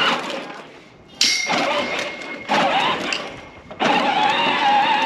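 Battery-powered ride-on toy tractor's electric motor and gears running in short spurts, starting and stopping about every second as it lurches forward. Near the end a steady sound with a wavering pitch takes over.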